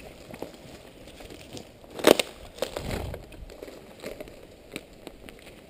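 Footsteps crunching over rubble and dry brush, with scattered small cracks and rustles and one much louder sharp crack about two seconds in.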